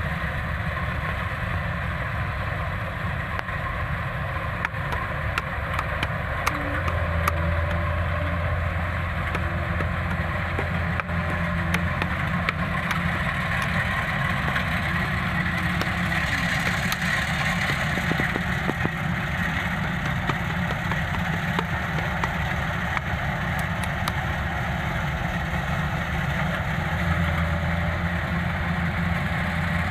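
Kubota combine rice harvester running steadily as it cuts ripe rice: a continuous engine and machinery drone with a strong low hum.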